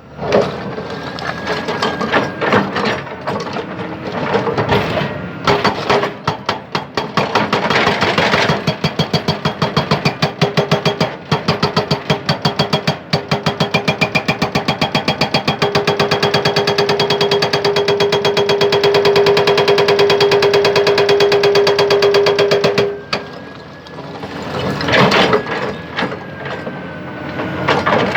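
Hydraulic breaker on a Hyundai 220LC excavator hammering hard rock in rapid, continuous blows. The hammering stops briefly about 23 seconds in and then starts again.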